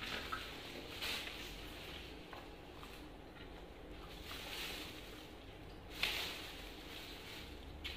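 Monkeys eating longan and lychee: short crackling and rustling of fruit shells and leafy branches as they bite and peel, with a sharper crackle about six seconds in.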